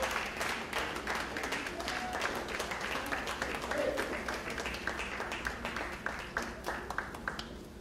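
Audience applauding, the clapping thinning out and fading toward the end, with a few voices calling out.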